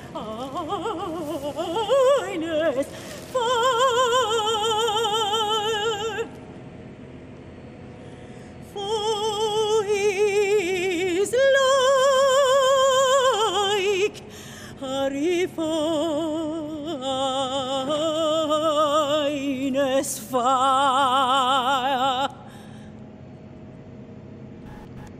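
A woman singing in operatic style, holding long notes with wide vibrato in a series of phrases with short pauses between them. It opens with sliding notes, and the singing stops a few seconds before the end.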